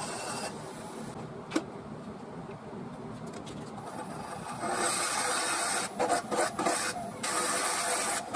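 Wood lathe spinning a mulberry bowl blank while a drill bit in a tailstock Jacobs chuck bores into its centre. It runs quieter at first with a single click, then from about halfway the bit cuts in with a loud hiss that turns stop-start near the end as it is fed in.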